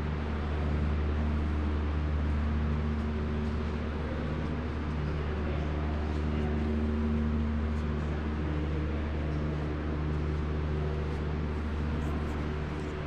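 Steady low droning hum with a few steady tones over it and an even background hiss, a continuous machine-like room drone.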